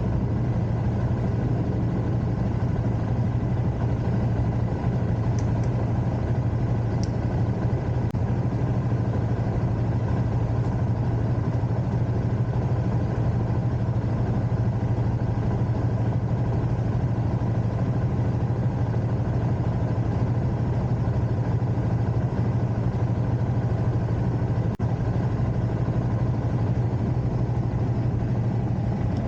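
Suzuki GSX-S150's single-cylinder engine running steadily at an even pitch, without revving, as at idle.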